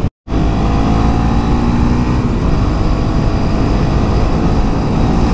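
KTM Duke 390 single-cylinder engine pulling hard at high speed, its pitch climbing slowly as the bike accelerates, under heavy wind rush. The sound drops out for a moment just after the start.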